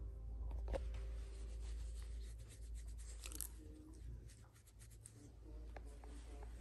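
Soft rustling and rubbing of fur and fleece blanket as a Rottweiler puppy is stroked, with scattered small clicks and a low rumble of handling noise. The rumble is loudest in the first second and fades after.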